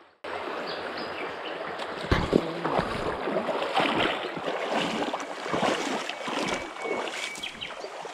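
Shallow stream running over stones, a steady rushing of water, with a few louder knocks about two seconds in.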